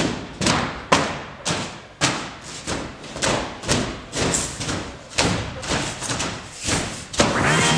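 Heavy thumps at about two a second, each ringing on briefly, and music comes in near the end.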